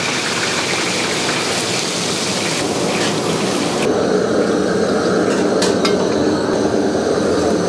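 Kitchen cooking sounds: a ladle stirring liquid in a large black wok with a steady hiss, then chunks of braised pork belly being turned over in a pot with a lower, wetter churning. A few sharp metal clicks come near the end.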